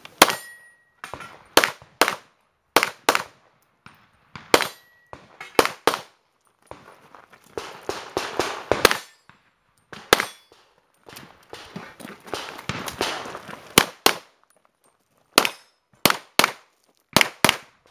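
Pistol shots fired through a practical shooting course: about two dozen sharp shots, mostly in quick pairs, in short strings separated by pauses. A few are followed by a brief ring of struck steel targets.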